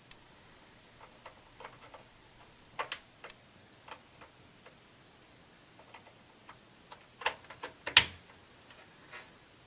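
Scattered light clicks and taps of plastic power-cable connectors and wiring being handled inside a desktop PC case, as a dedicated PCIe power cable from the power supply is connected to the graphics card. The loudest, a single sharp click, comes about eight seconds in.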